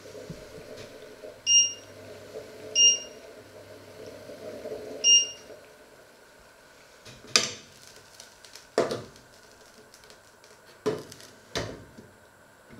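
Three short electronic key beeps from a kitchen appliance's controls, then four sharp clanks of a metal pot lid and pans being moved on the ceramic hob.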